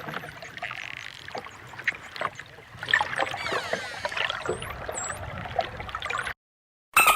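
Dolphins clicking and whistling underwater: scattered sharp clicks, short high whistles that dip and rise, and buzzing pulsed calls. The sound cuts out briefly near the end, then a loud rapidly pulsing buzz starts.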